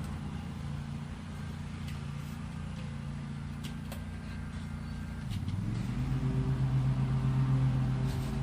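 An engine running steadily with a low hum. About five seconds in its pitch drops briefly, then it picks back up and runs a little louder.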